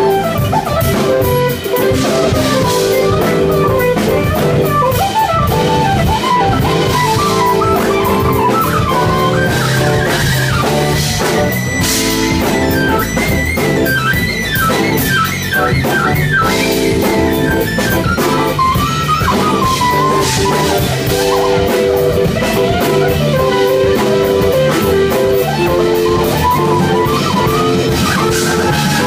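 Live band music: synthesizer keyboards playing held chords and a lead melody that slides up and down in pitch, over a steady drum beat.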